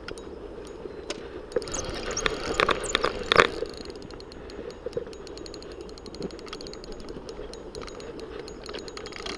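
Shimano Exage spinning reel in use on a hooked fish: a few clinks and knocks about two to three seconds in, then a rapid, even run of fine mechanical ticks through the second half, over a steady low rushing noise.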